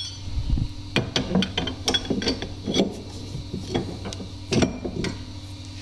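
Metal U-bolt being fitted into a golf cart's upper shock mount on the rear axle, giving irregular clicks, taps and clinks of metal on metal. A steady low hum runs underneath.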